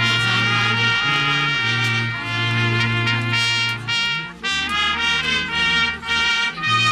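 A miners' brass band playing a tune: trumpets carrying the melody over a low brass bass line.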